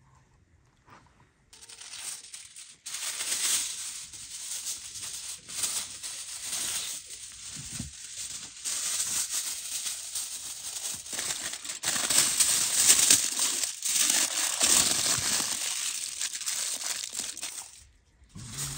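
Near silence, then aluminium foil crinkling and rustling as sheets are handled and wrapped around a whole fish. It starts about a second and a half in and stops just before the end.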